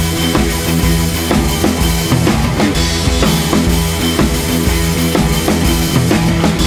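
Music track with a steady drum-kit beat of bass drum and snare over sustained bass and instrument notes.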